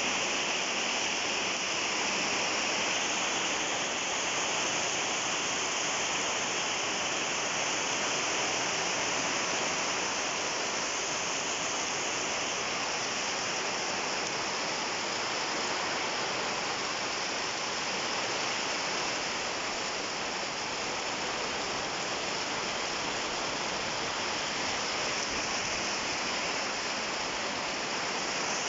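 Heavy rain falling in a steady, unbroken hiss, with a stream of roof runoff pouring into an overflowing bucket and splashing.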